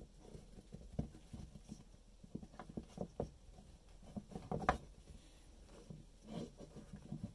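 Faint handling noise of hands tying a knot in a braided starter pull cord: soft rubbing with scattered small clicks and taps, the loudest about two-thirds of the way through.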